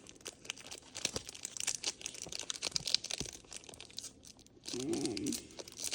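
Foil booster-pack wrapper crinkling and tearing as a Pokémon card pack is opened, a run of rapid crackles and clicks. A short hum from a voice is heard about five seconds in.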